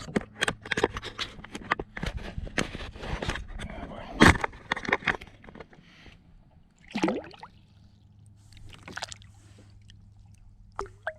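Water sloshing and splashing beside a plastic kayak, with a quick run of knocks and scrapes on the hull, as a caught largemouth bass is handled and let back into the water. The loudest knock comes about four seconds in, and a few separate splashes follow.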